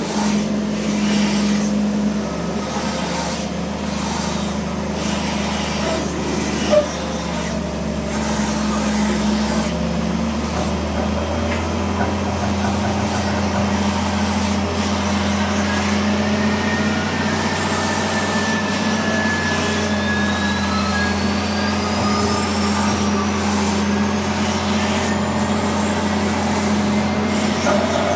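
Pushback tug's diesel engine running steadily under load as it pushes a Boeing 777-300ER back from the gate. Through the second half a thin jet-engine whine rises slowly in pitch, with one sharp click about seven seconds in.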